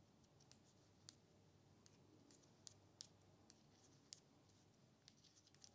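Faint, irregular clicks of metal circular knitting needles tapping together as stitches are purled across a row, about two clicks a second.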